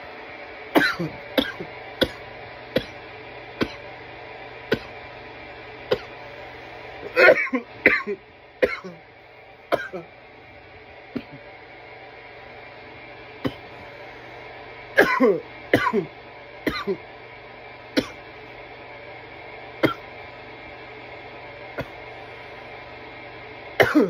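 A man in a coughing fit from bong smoke: about two dozen coughs, some in quick runs of two to four and others single, coming further apart in the second half.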